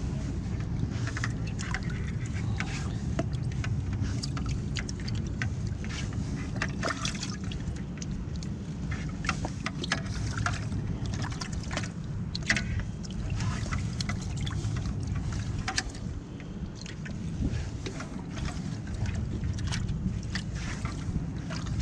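Water splashing and sloshing in a bucket as hands handle live yellow perch, with scattered sharp splashes and clicks over a steady low rumble.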